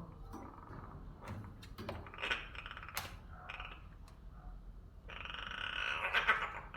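Young crow calling: a few short harsh calls, then one long raspy call about five seconds in that lasts over a second and is the loudest sound.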